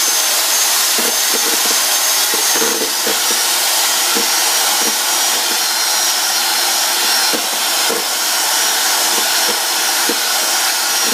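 Electric hand mixer running steadily at one speed, its beaters churning a crumbly cake mixture in a plastic bowl, with a thin high whine from the motor. Irregular short knocks come through as the beaters strike the bowl.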